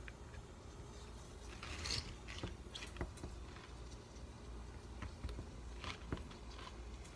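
Light handling noises from gluing a worn water shoe: scattered small clicks and taps, with a brief scraping rustle about two seconds in.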